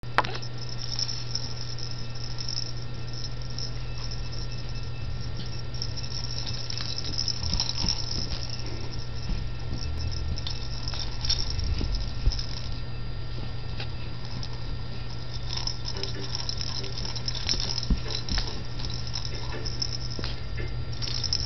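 A steady low hum with scattered light clicks and rattles from the dangling rattle pieces of a plush apple toy as it is jiggled.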